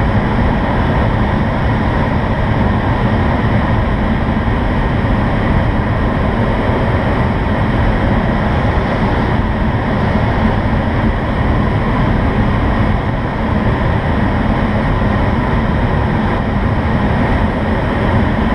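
Steady rush of air over the canopy inside the cockpit of an IS-28B2 two-seat glider in flight: an even, unbroken noise with no engine in it.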